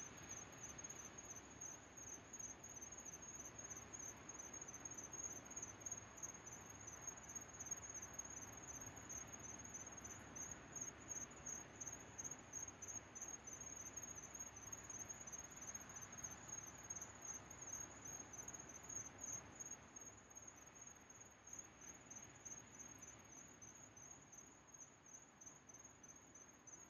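Crickets chirping in a steady, rapid, high-pitched pulse over a faint, soft ambient wash.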